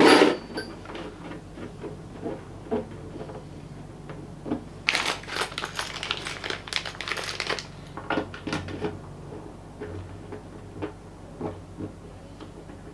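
Small clicks and taps of screws and hardware being handled and fitted into a plastic snorkel body, with a small plastic packet of screws crinkling for a couple of seconds in the middle.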